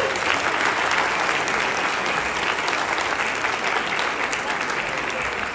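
Audience applauding, many hands clapping steadily together.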